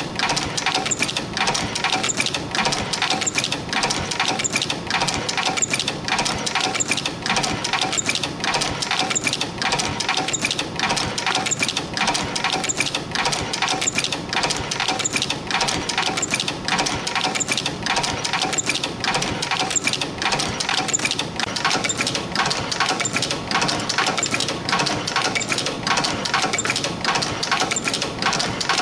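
Yeou Huey EF-210 CNC extension-spring machine running in production, coiling 0.5 mm wire and bending German-style end hooks: a steady, fast mechanical clatter of closely spaced clicks and ticks.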